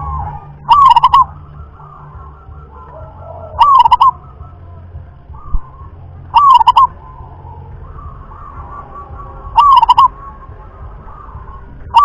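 Local wild-type zebra dove (perkutut) cooing its song: a short phrase of quick rolling notes, repeated four times about three seconds apart.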